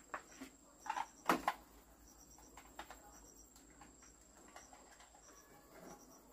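A few sharp clicks and knocks about a second in, from handling an electric plug and cord at a wooden slicing machine, with faint high chirps repeating in little groups in the background.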